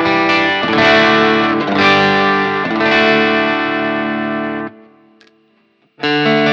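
Electric guitar played through a BSM Starbreaker transistor power-amp-simulator pedal into a Marshall Plexi amp, giving an overdriven tone on ringing chords and notes. The playing cuts off suddenly about four and a half seconds in and starts again after a second or so of near silence.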